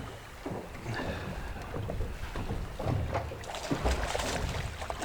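Wind gusting on the microphone over water moving around a small boat, with a few scattered knocks. The rumble swells a couple of times partway through.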